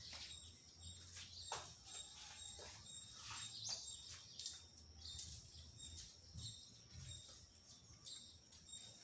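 Near silence: faint room tone with scattered faint high chirps.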